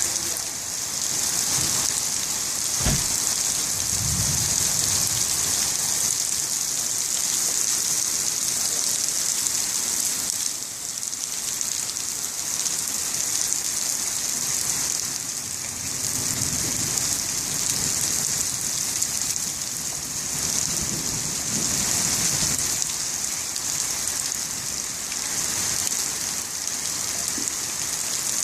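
Heavy rain falling steadily in a thunderstorm, with a sharp crack of thunder about three seconds in that rolls into a low rumble, and more low thunder rumbles a little past the middle.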